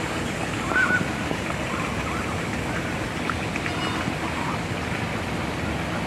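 Flamingos calling: one short call just before a second in, the loudest sound, then a few fainter calls, over a steady noisy background.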